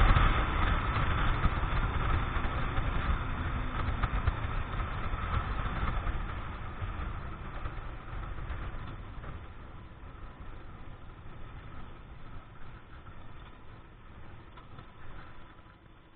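Keeway X-Light 125 motorcycle's engine and wind rush, heard from the rider's seat, fading steadily as the bike slows from about 60 km/h to a crawl.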